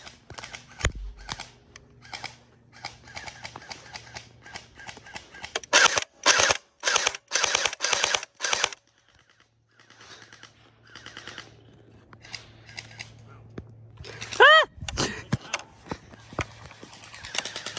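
Electric gel ball blasters firing: scattered shots at first, then about six rapid bursts of automatic fire in quick succession, and more scattered shots later. A brief high-pitched cry that dips and rises in pitch comes about two-thirds of the way through.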